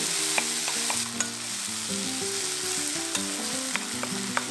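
Shiitake mushrooms, onion and green onion sizzling in oil in a nonstick wok while a wooden spatula stirs them, with scattered taps and scrapes of the spatula on the pan. This is the last stir-fry after the green onion goes in.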